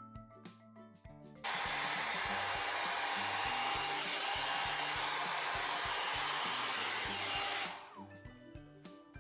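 BrushX hot-air brush (a hair dryer and round brush in one) switched on about a second and a half in. Its blower runs with a steady rush of air for about six seconds, then it is switched off and the motor winds down with a falling whine.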